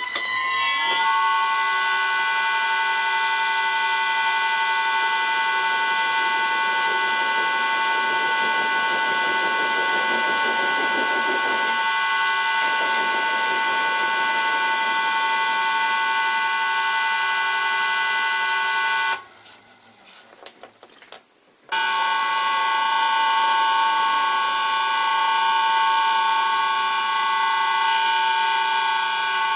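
Old Karger metal lathe running while a cutting tool turns a point on a centre held in the chuck. It gives a loud, steady, high whine made of several pitches, which settle within the first second. The whine breaks off for about two seconds around two-thirds of the way through, then resumes.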